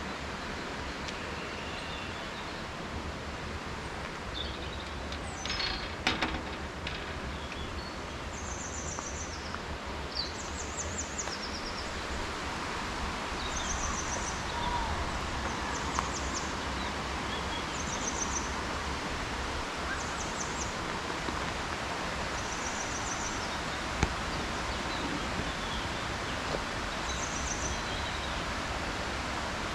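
Steady rush of flowing river water, with short high chirping trills repeating every second or two and a brief crackling rustle about six seconds in.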